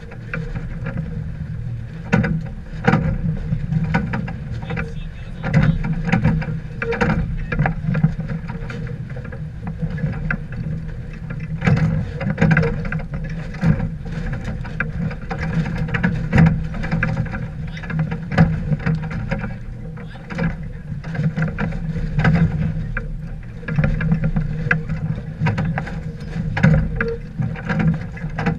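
Steady rush of wind and water aboard a sailboat under way, swelling and easing unevenly.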